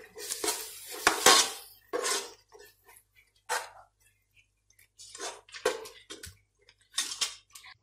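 Metal spoon scraping and clinking against the inside of an aluminium pressure cooker while onion, tomato and ginger-garlic paste are stirred and sautéed. The strokes come irregularly, with a short quiet pause a little past halfway.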